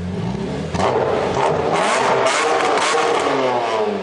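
Car engine revving, getting louder about a second in, its pitch rising and then falling back near the end, with sharp crackles on top.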